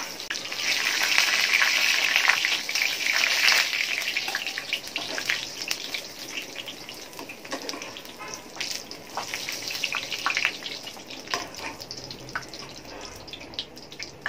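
Cashews and raisins deep-frying in hot sunflower oil in a small pan. The oil sizzles loudly for the first few seconds, then dies down to a quieter sizzle with scattered pops and clicks.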